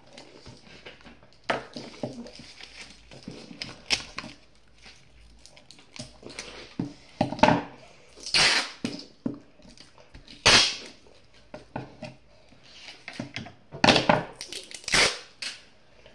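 Paper being handled: short, sharp rustles and crinkles in irregular bursts, the loudest near the middle and toward the end.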